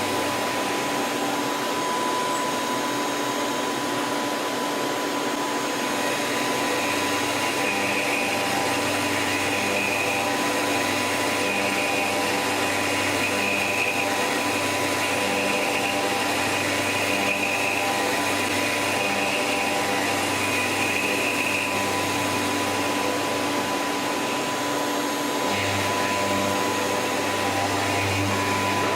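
CNC lathe running: a steady machine noise with a constant high tone. A higher whine sets in about seven seconds in, drops out about three-quarters of the way through, and returns near the end.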